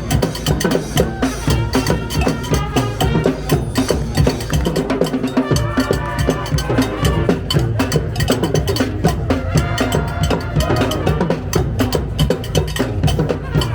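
A street band playing live: drums and percussion keep a dense, steady beat under held melody notes.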